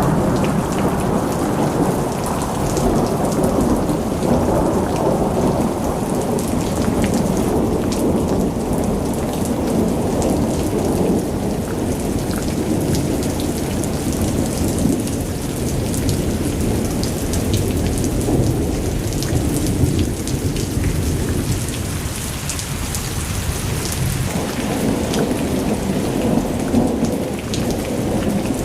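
Thunderstorm: steady rain with long rolling thunder, which eases a little about three quarters of the way through and builds again near the end.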